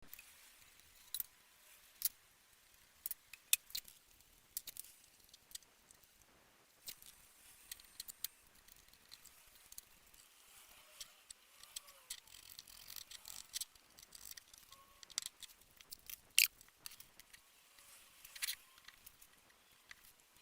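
Irregular light clicks and taps of small metal parts and hand tools being handled during work on an antique table fan, with a few sharper clicks standing out.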